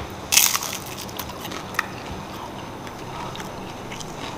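A bite into a crisp, still-hot fried risol (a breaded, fried crêpe roll), with one loud crunch about half a second in, then a few soft clicks of chewing.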